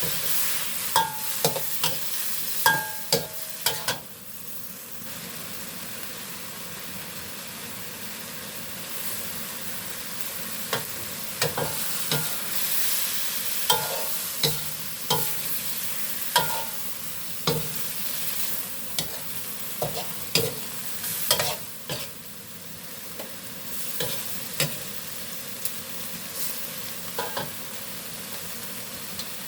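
Stir-frying in a hot pan: steady sizzling, with a spatula scraping and knocking against the pan at irregular intervals, some strikes ringing briefly.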